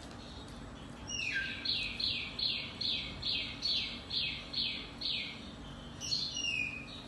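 A bird singing: a run of about ten quick, alike downward-sweeping chirps, two or three a second, then a short, more varied phrase near the end.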